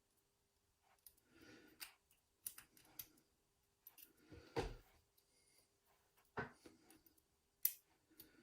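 Faint clicks, taps and light scraping of small metal lock parts as a Yale euro cylinder is handled during rekeying, with a louder knock about four and a half seconds in and sharp clicks near the end.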